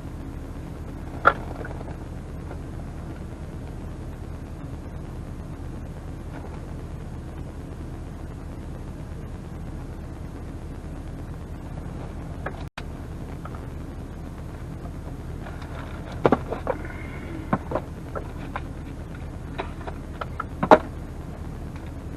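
Steady low rumble of a vehicle running, with a few sharp knocks and clicks about a second in and several more in the last third.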